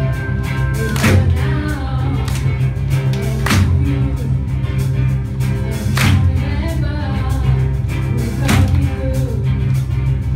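Large gospel choir singing live with instrumental backing and a steady bass line, a sharp accent landing about every two and a half seconds.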